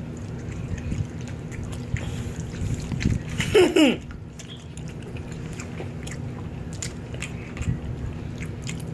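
Two people chewing pieces of soft homemade gelatin gummy candy, with small wet mouth clicks and smacks. About three and a half seconds in, one of them makes a short falling vocal 'mm' sound while chewing.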